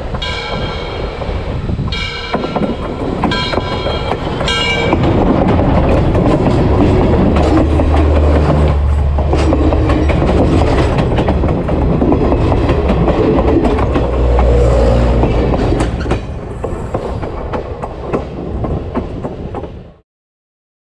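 Train horn sounding four blasts over the first five seconds as the train approaches, then the train passing directly overhead: a loud rumble with wheels clicking and rattling over the rails, loudest in the middle. The sound cuts off suddenly near the end.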